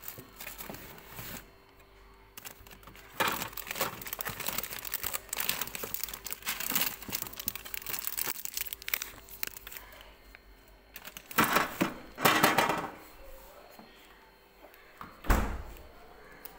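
Plastic bags and chocolate bar wrappers crinkling and rustling as hands rummage through a fridge drawer, with louder bursts of crinkling past the middle. A single dull thud near the end.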